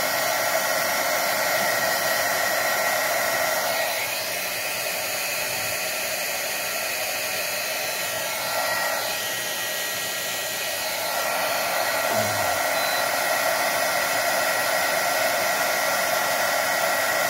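Heat gun blowing steadily, a rushing of hot air with a faint steady whine, held over a circuit board to reflow the solder under a BGA chip. It goes a little softer for several seconds in the middle.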